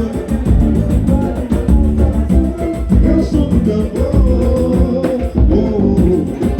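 Live pagode music: a voice singing over plucked strings and drums, with a strong low drum sound.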